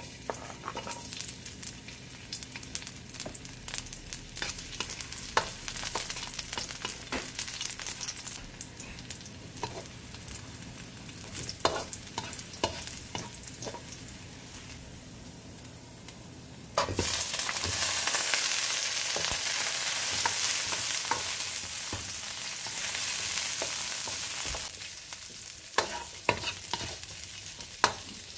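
Garlic frying in hot oil in a metal wok, with a spatula clicking and scraping against the pan as it is stirred. About two-thirds in, the sizzle jumps suddenly much louder as sliced onion goes into the oil, then eases back down near the end.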